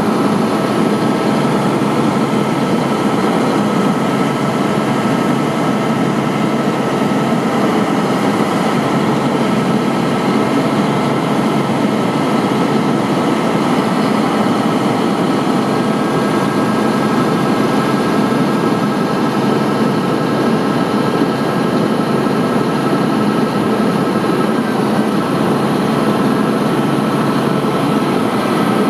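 Diesel engine of a Volvo WG64 crane truck running steadily to drive the hydraulic knuckle-boom crane as the boom is worked, with a thin steady whine running through it.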